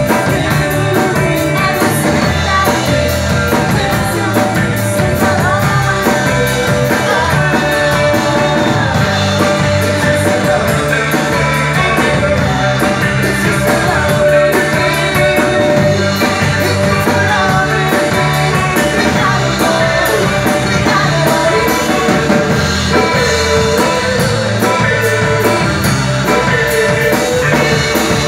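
Live rock band: a woman singing over electric guitar and a drum kit, at a steady loud level.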